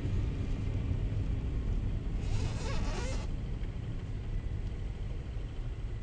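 Car driving on a snow-covered road, heard from inside the cabin: a steady low rumble of tyres and engine, with a brief hiss lasting about a second, starting about two seconds in.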